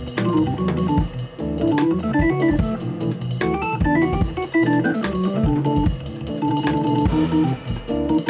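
Hammond B3 organ playing fast jazz runs that climb and fall again, over a drum kit with steady drum and cymbal hits.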